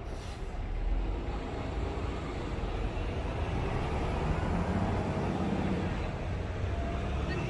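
Steady low rumble of passing road traffic, with an engine hum that swells in the second half.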